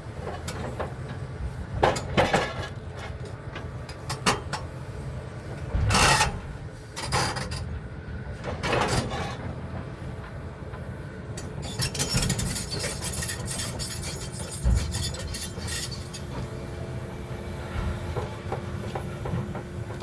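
Hydraulic excavators at work: a steady diesel engine drone with loud metal clanks about two, six and nine seconds in, and a stretch of rattling clatter around twelve seconds in, from steel antenna tubes and scrap being handled.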